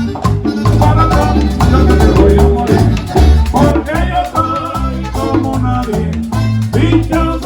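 Latin dance band music in an instrumental passage without vocals: a steady, repeating bass line under even percussion and melodic instrument lines.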